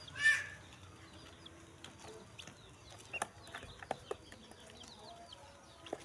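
Newly hatched ducklings peeping: many short, high, falling peeps throughout, with one louder call just after the start. A few sharp taps come near the middle.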